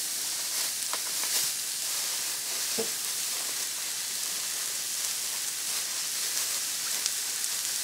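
Food frying on a flat-top griddle: a steady sizzling hiss, with a few faint clicks.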